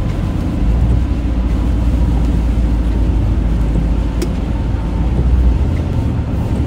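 Steady low rumble of a car heard from inside the cabin, with a single faint click about four seconds in.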